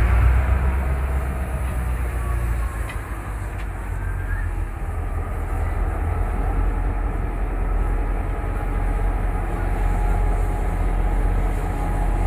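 EMD G26 diesel-electric locomotive running as it creeps slowly along the track, a steady deep engine rumble.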